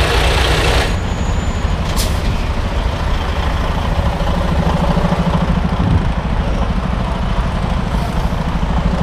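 A semi truck's diesel engine idling steadily: loud and close at first, then further off after about a second. The drivers suspect a faulty injector, because it puts out white smoke and a diesel smell. A brief hiss comes about two seconds in.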